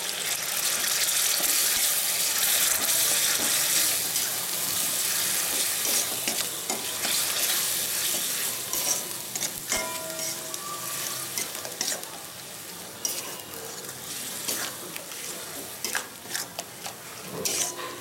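Freshly added onion paste sizzling in hot mustard oil in a metal kadai while a metal spatula stirs and scrapes it around the pan. The sizzle is loudest in the first several seconds and dies down after about ten, leaving scattered scrapes and taps of the spatula on the pan.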